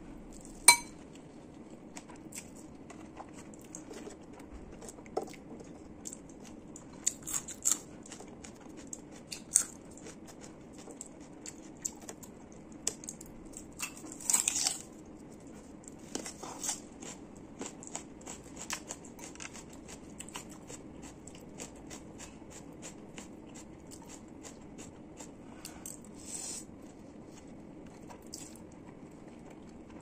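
Close-up eating sounds: wet slurps and chewing of noodles with scattered small clicks. A sharp clink of a metal fork against a ceramic bowl comes near the start, and there is a longer crunchy bite into a raw red onion about halfway.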